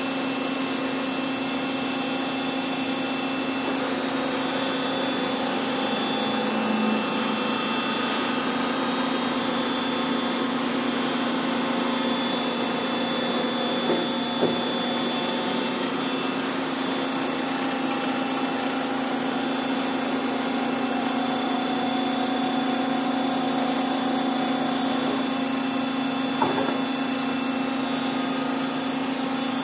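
Steady machine hum over a constant hiss, with a few faint clicks midway and near the end.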